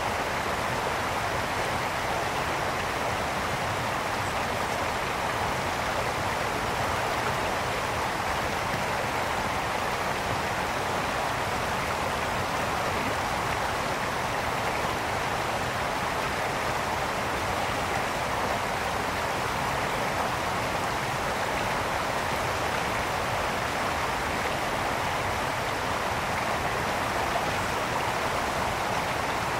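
A brook running: steady rushing and burbling of water flowing over stones, even throughout.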